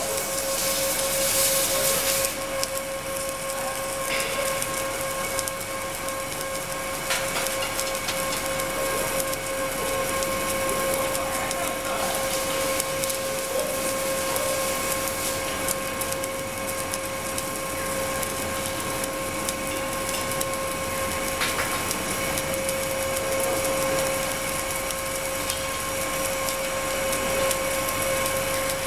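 Automated arc welding on a Kistler pipe-welding machine, running a seam around a lobster-tail pipe elbow: a steady crackling hiss from the arc with a constant whine underneath. The hiss flares louder for about the first two seconds.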